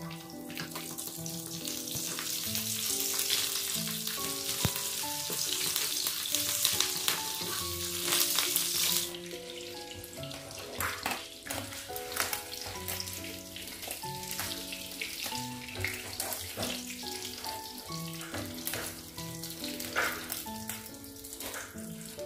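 Hot oil sizzling hard around milkfish frying in a pan as the pieces are turned with wooden tongs. The sizzle cuts off abruptly about nine seconds in, leaving scattered light clicks and knocks of the tongs and a wire strainer against the pan. Soft background music plays throughout.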